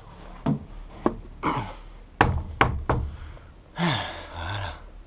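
A run of sharp knocks and thuds on wood, about six in three seconds and unevenly spaced, from someone moving over the wooden boards. About four seconds in comes a short scraping rustle.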